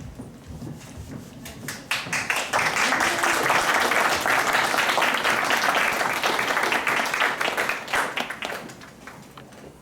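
Theater audience applauding, breaking out about two seconds in and dying away near the end.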